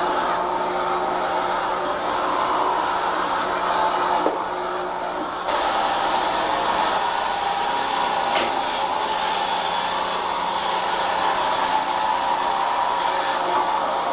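Robot vacuum cleaner running: a steady motor whine and whir of its suction and rotating brush, briefly quieter for about a second some four seconds in.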